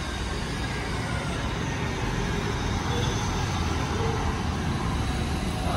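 Steady rumble of road traffic, with faint voices in the background.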